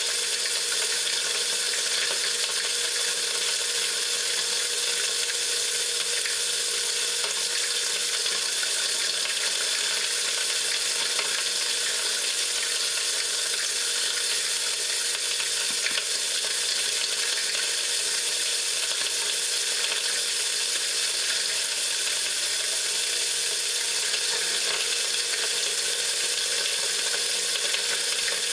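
Homemade stainless-steel corn meal grinder with a 2 HP electric motor running steadily while milling dry corn. It makes a continuous gritty hiss as the kernels are ground by a four-tip blade against a drilled stainless screen, with a steady hum underneath.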